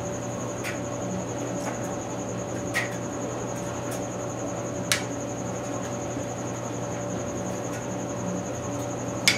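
Steady hum of a fan or electrical equipment, broken by a few short, light clicks: two or three in the first half and a sharper one near the end.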